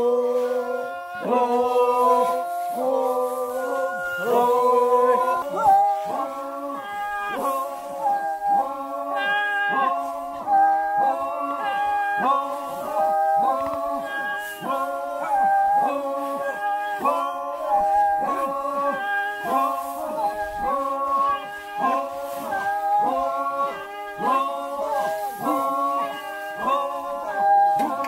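Singing: a continuous melodic line of short held notes that step up and down in pitch, without spoken words.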